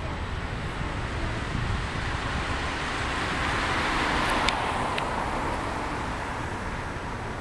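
A road vehicle passing by: its road noise swells to a peak about halfway through and fades again, over a steady low rumble. Two light ticks come about half a second apart at the peak.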